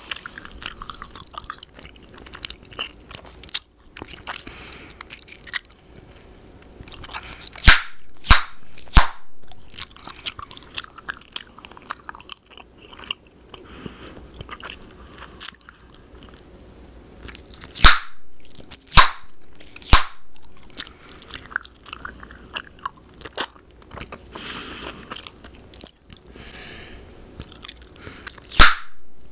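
Bubble gum chewed close to the microphone, a steady run of small wet smacking clicks, broken by loud sharp gum pops in clusters: three about eight seconds in, three more around eighteen to twenty seconds, and one near the end.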